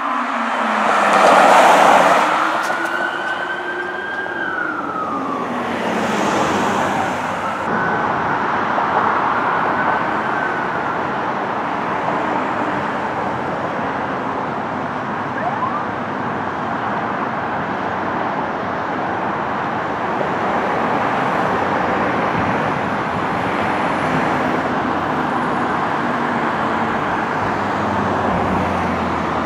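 Police car siren wailing, slowly sweeping up and down in pitch, with a loud rush of a vehicle passing close about a second or two in. After several seconds the siren dies away and steady highway traffic noise takes over.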